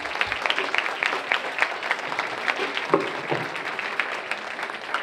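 Audience applauding, with many hands clapping at once.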